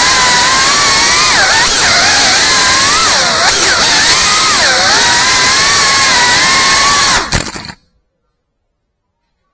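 FPV drone's electric motors and propellers whining loudly, the pitch dipping and rising again and again as the throttle changes. The sound cuts off abruptly about three-quarters of the way through, followed by silence.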